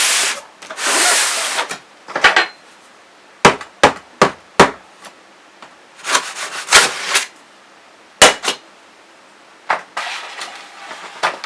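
A machete slicing and scraping through the tape seals of a cardboard box, in a few short scraping swipes, with about seven sharp knocks of the blade against the box.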